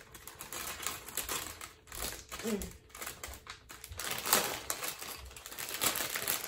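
Thin plastic LEGO polybag crinkling and crackling as it is twisted and pulled at by hand to tear it open, in short irregular bursts of sharp ticks.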